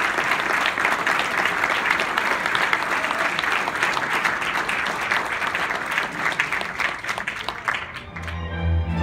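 Audience applause, many hands clapping, dying away about eight seconds in as string music starts.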